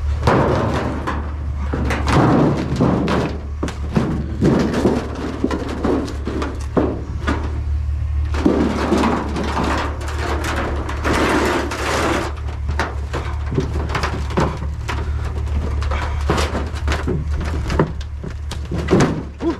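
Scrap metal and junk clattering and banging as it is dug out and shifted about in a metal dumpster: an irregular run of knocks, bangs and scrapes.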